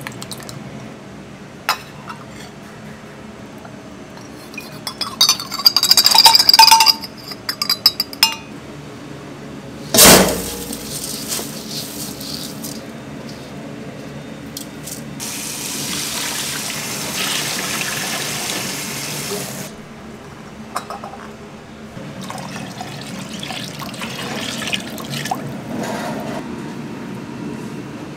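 Stainless steel cup and bowl clinking and rattling as water-soaked rice is scooped and tipped out, with one loud metal clank about ten seconds in. Water pours steadily for several seconds after, then lighter handling noises.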